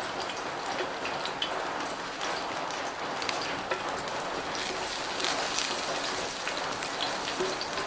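Chopped garlic frying in hot cooking oil in a pan: a steady sizzle with small scattered crackles.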